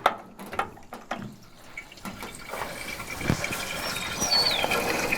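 Water being poured into the John Deere 4755 tractor's cooling system through its filler, a steady splashing that grows louder from about two seconds in.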